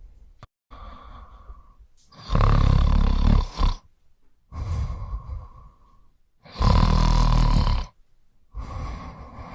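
Snoring in slow, regular breaths: two loud snores about two and six and a half seconds in, each lasting over a second, with quieter breaths between them.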